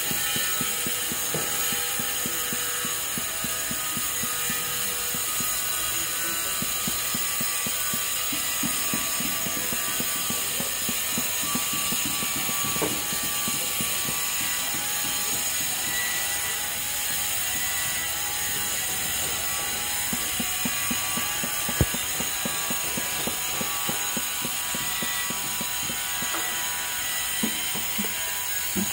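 Hand hammer tapping and chipping at broken tile and mortar rubble: many quick light knocks over a steady hiss, with one sharper knock about three-quarters of the way through.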